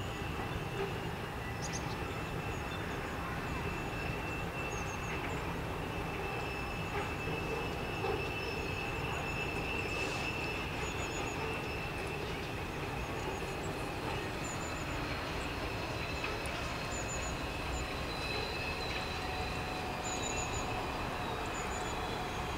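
Class 66 diesel locomotive's two-stroke V12 engine running steadily as it hauls a freight train slowly round a curve, with a steady high-pitched wheel squeal from the wagons on the bend. Faint bird chirps now and then.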